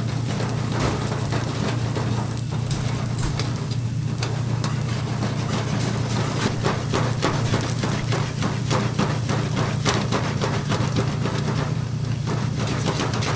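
Restaurant kitchen cooking sounds: a crackling frying hiss with quick clicks and knocks of utensils, densest in the middle, over a steady low hum.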